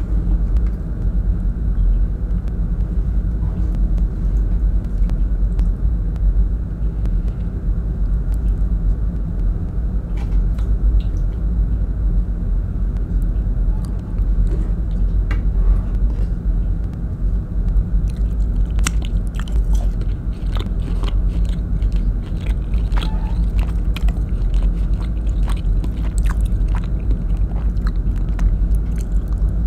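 Close-miked wet food sounds from a wooden spoon working through chunks of beef in thick coconut-milk sauce in a metal pot, over a steady low rumble. Sticky clicks and squelches get busier in the second half. Near the end a handful of rice and beef is eaten by hand.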